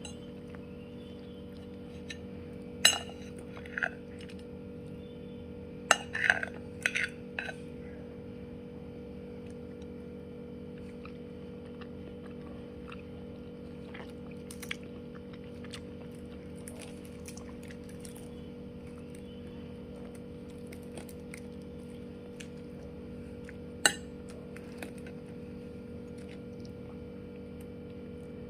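Dishes and utensils clinking: one sharp clink about 3 s in, a quick cluster around 6 to 7 seconds, and another near 24 s, over a steady low hum.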